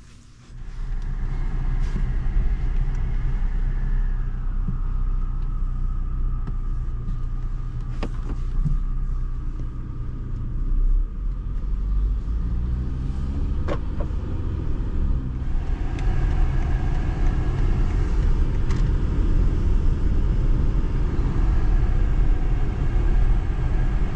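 2019 BMW X5 on the move, heard from inside the cabin: a steady low engine and road rumble, a little louder from about two-thirds of the way in, with a few sharp clicks.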